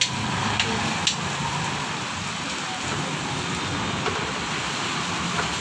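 Steady hiss of rain falling, with a few light taps in the first second.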